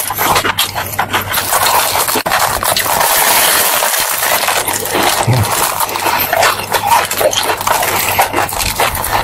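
Close-miked eating: a man bites into a fried bread bun with a meat filling and chews it, making a dense run of crunching and wet mouth clicks.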